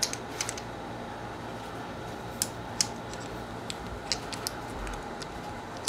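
Sharp metallic clicks and taps, scattered a few at a time, from the slide and barrel of a .45 1911 pistol being handled and fitted back together during reassembly, over a steady low hum.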